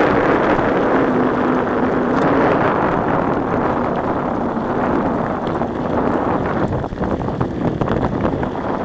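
Wind buffeting the microphone of a camera on a moving mountain bike, over the rumble of tyres on a gravel track, with many short rattles and knocks from bumps.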